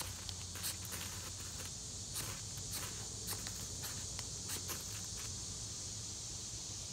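Spine of a stainless Mora Companion knife scraping down a bayite keychain ferro rod in quick, short strokes, about a dozen irregular rasps that stop about five seconds in, throwing sparks onto cloth tinder.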